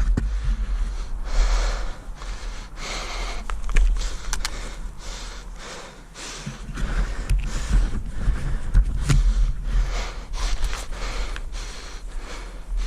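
A person breathing hard close to the microphone, one noisy breath about every second, over a steady low rumble.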